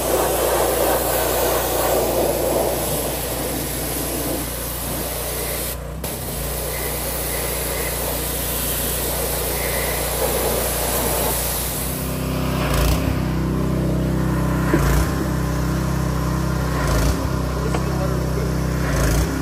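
Steady engine hum with an even low drone; about twelve seconds in it becomes louder and fuller, with a few short knocks after that.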